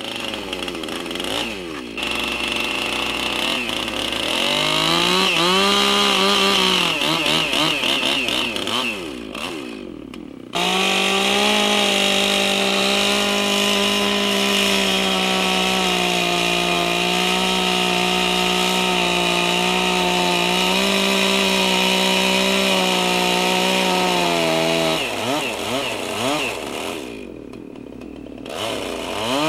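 A gasoline chainsaw cutting into a log. The engine rises and falls in speed, dips briefly about ten seconds in, then holds at steady high revs in the cut for about fifteen seconds before easing off near the end.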